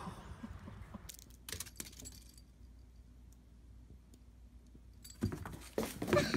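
Light clicks and knocks from a kitten playing among cardboard boxes, with a cluster of louder knocks near the end as a box is knocked over.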